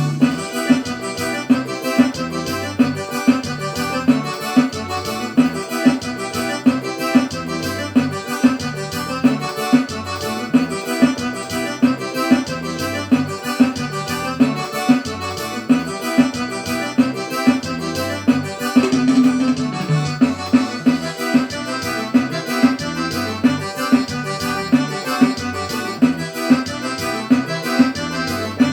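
Electronic keyboard playing an instrumental forró piece: pitched keyboard voices over a steady, evenly repeating beat.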